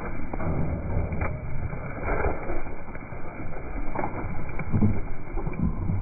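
Zwartbles sheep grazing right against the microphone: irregular rustling and soft knocks as they crop the grass and their fleece and muzzles brush the phone.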